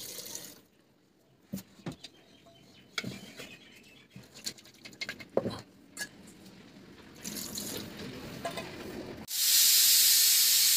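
Liquid poured from a kadai into an aluminium pressure cooker, then scattered clinks and knocks of utensils against the pots. Near the end a loud steady hiss starts suddenly: steam venting from the closed pressure cooker.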